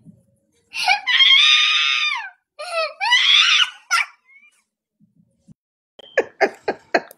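A small child's high-pitched shrieks of laughter: one long squeal of about a second and a half, then a shorter one that rises and falls. Near the end, an adult laughs in a quick run of short ha-ha sounds.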